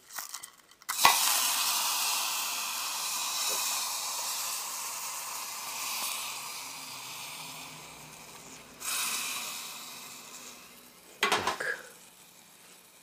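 Liquid sizzling in a hot aluminium camping pot heated over a dry-fuel tablet stove: a hiss that starts suddenly about a second in and slowly fades, flares up again near nine seconds, then a few light knocks around eleven seconds.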